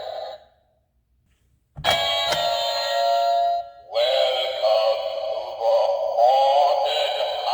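Witch Halloween door-knocker toy playing through its small speaker. About two seconds in, an electronic two-note ding-dong doorbell chime rings for about two seconds. Then a high recorded witch voice laughs in short rising and falling phrases.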